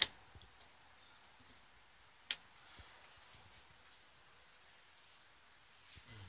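A sharp click as the rocker switch on a camper's ceiling dome light is pressed, and a second, louder click about two seconds later, over a steady high-pitched whine.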